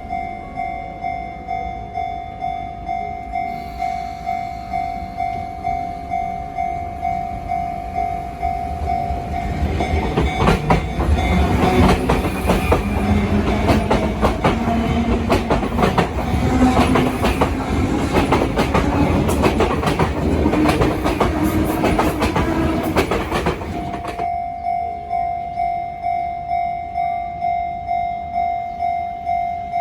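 Level-crossing warning bell ringing in a steady, evenly repeating ding. About ten seconds in, an electric train passes over the crossing for roughly fourteen seconds, louder than the bell: its wheels clack over the rail joints and a motor whine rises in pitch. The bell is heard again once the train has gone by.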